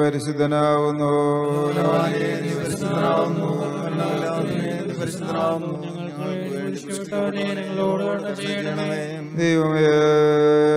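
A man chanting a Malankara Orthodox liturgical prayer in Malayalam, holding long steady notes near the start and end and moving through shorter phrases in between.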